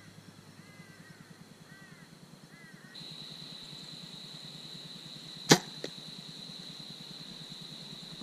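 A bow being shot: the string releases with one sharp, loud snap about halfway through, followed by a faint tick. Birds chirp repeatedly early on, and a steady high-pitched whine runs after that.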